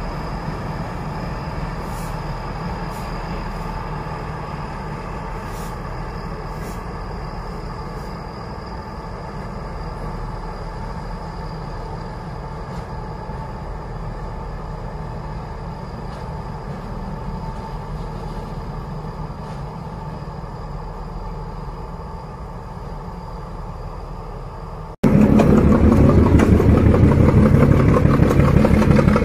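Diesel locomotive engine running inside a railway tunnel, heard from the portal as a steady drone with a few held tones. About 25 seconds in, it cuts abruptly to a D12E diesel locomotive's engine running close by, much louder.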